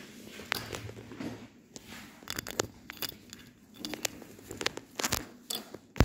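Scattered light clicks and taps, irregular and some in quick pairs, from an Indian ringneck parrot's claws and beak on a wooden tabletop.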